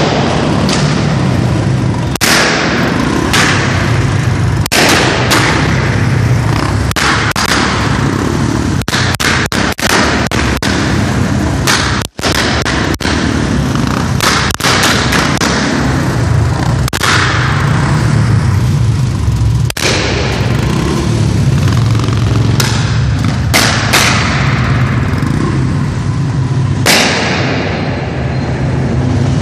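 Royal Enfield single-cylinder motorcycle engine running with repeated loud pops and bangs from the exhaust, some coming in quick clusters: the engine is misfiring.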